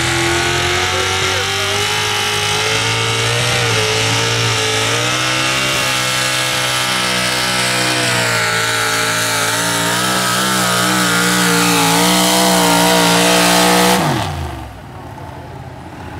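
Supercharged engine of a super stock two-wheel-drive pulling truck held at high revs under full load as it drags the sled. The pitch wavers up and down as it goes, then drops away sharply about 14 seconds in as the throttle is let off at the end of the pull.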